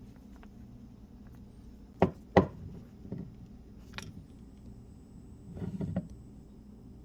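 Two sharp knocks in quick succession about two seconds in, then a few lighter clicks and a brief clatter near the end: hard objects being handled and set down.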